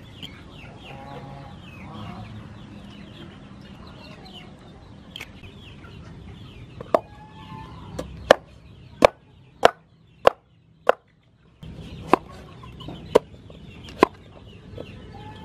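Cleaver chopping through pumpkin onto a wooden chopping board: a run of about ten sharp knocks, one every half second to a second, starting about halfway through. Chickens cluck in the background.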